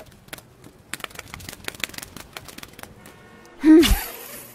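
Added sound effects: a run of sharp crackling clicks as something cracks apart, then about three and a half seconds in a loud whoosh that fades out, for a yo-yo swung to catch a butterfly.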